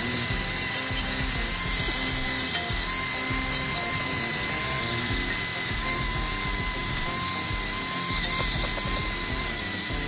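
Cordless drill spinning a wire wheel against a pump volute's gasket flange, scrubbing off old liquid gasket: a steady motor whine over the scratching of the wire bristles.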